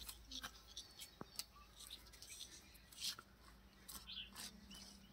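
Faint, scattered crackles and rustles of wet feathers being pulled by hand from a scalded chicken.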